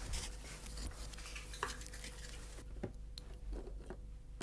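Thin wooden planking strips and small tools handled against a wooden scale model ship's hull: faint, scattered light clicks and taps, over a faint steady hum.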